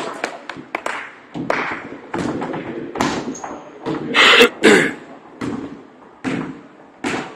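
Irregular thumps and taps of a basketball game on a hardwood court: the ball bouncing and players' feet landing. The loudest is a short burst a little past four seconds in.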